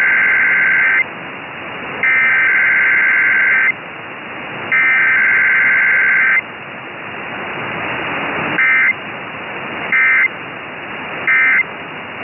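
Emergency Alert System SAME digital data bursts, a harsh warbling screech: three long header bursts of a little under two seconds each, then three short end-of-message bursts spaced about a second and a half apart. Receiver static hisses in the gaps between them.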